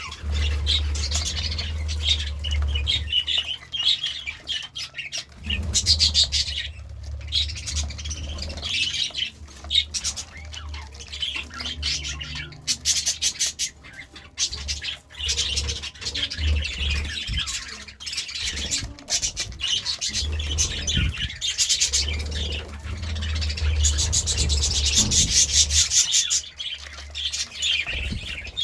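Budgerigars chirping and chattering continuously, with squawks among the warbling. A low hum comes and goes underneath.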